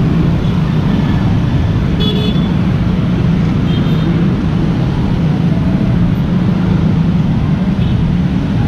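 Steady rumble of busy road traffic, mostly motor scooters and cars passing close by, with a short horn toot about two seconds in.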